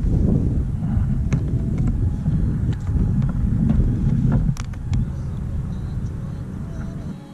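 Wind buffeting the camera microphone: a heavy low rumble that eases off about two thirds of the way through, with a few light clicks scattered through it.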